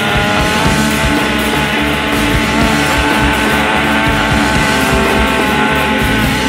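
Rock music with sustained guitar tones and a steady low bass, without singing.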